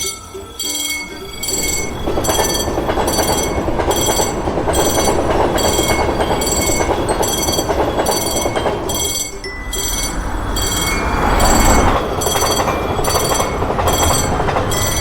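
Level crossing warning bell ringing in a regular rhythm of about two strokes a second while a train passes over the crossing, its running noise coming in about two seconds in, easing briefly near the middle and building again.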